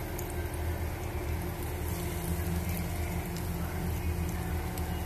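Cheese balls deep-frying in hot oil, a steady bubbling sizzle with faint small crackles, over a steady low hum.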